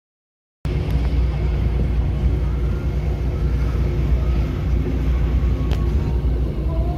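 Steady low rumble of a ferry's engine under way, with a hiss of wind and water over it; it cuts in abruptly less than a second in after dead silence.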